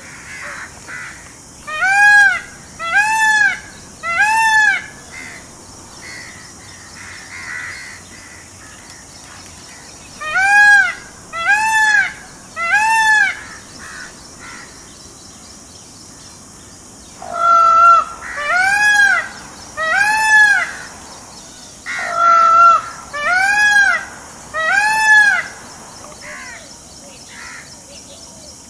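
Indian peafowl (peacock) giving its loud honking calls, each one rising then falling in pitch. They come in four bursts of three calls, spaced several seconds apart.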